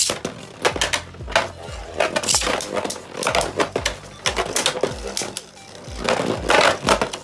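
Spinning Beyblade Burst tops clashing in a plastic stadium, a rapid run of sharp clicking and rattling impacts, over background music with a steady beat.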